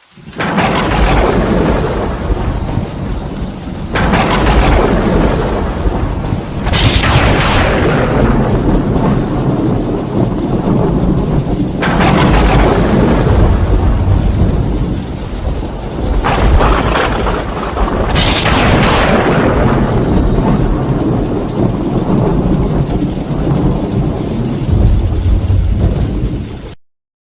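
Thunderstorm: steady heavy rain under continuous low rolling thunder, with about six sharp thunderclaps that each break out suddenly and fade back into the rumble. The recording cuts off abruptly near the end.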